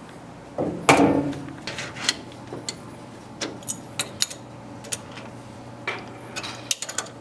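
Irregular light clicks and taps of hands working at a CNC mill, with a louder knock about a second in, over a low steady machine hum.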